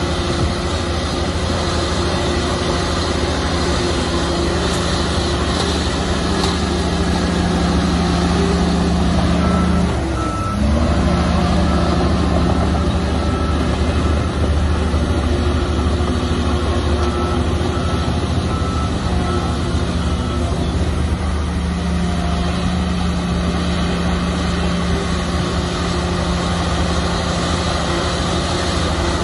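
Shantui bulldozer's diesel engine running steadily under load. Its speed dips briefly about a third of the way in, and a reverse alarm beeps in two spells as it backs up.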